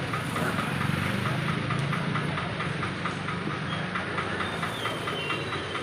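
A machine running steadily, with a low hum and a rapid, even ticking.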